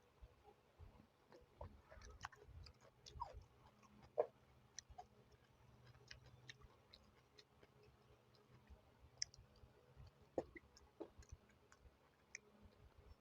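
A person chewing food up close, with soft wet mouth clicks and a few sharper clicks about 4 and 10 seconds in.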